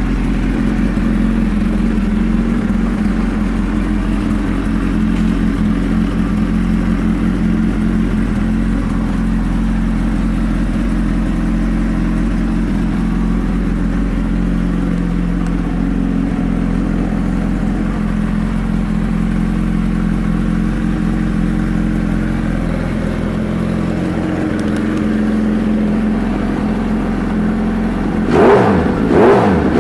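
2011 Suzuki Hayabusa's inline-four engine idling steadily through an aftermarket exhaust, then revved in several quick blips near the end.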